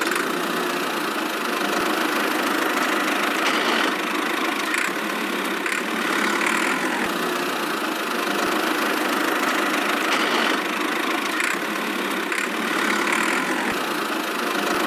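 A motor running steadily, an even mechanical whir with no change in speed.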